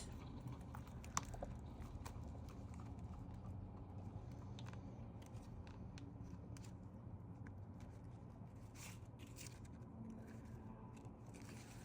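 Faint handling of paper banknotes and envelopes: soft rustles and small clicks, one sharper click about a second in and a few more near the end, over a low room hum.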